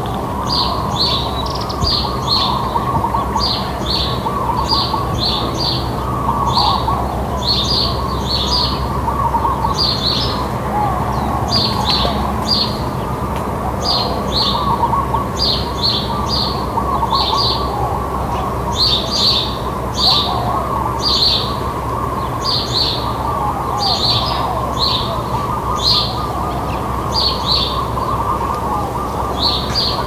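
House sparrows chirping over and over, about two chirps a second, with doves cooing and other birds calling more softly underneath over a steady low hum.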